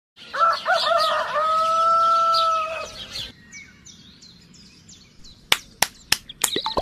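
A rooster crows once, the call ending in a long held note. Small birds then chirp faintly, and in the last second and a half a quick run of sharp hand slaps follows, like tobacco being slapped in the palm.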